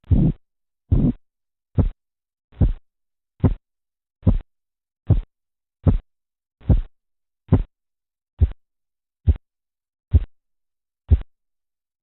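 Korotkoff sounds heard through a stethoscope over an artery as the blood pressure cuff deflates: fourteen regular beats, a little over one a second, longer at first and then shorter and sharper, stopping about eleven seconds in.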